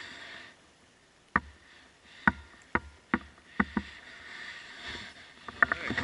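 Sharp clicks and knocks on the kayak and fishing gear, about six scattered over a few seconds and then a quick cluster near the end, as a just-caught bluegill is landed.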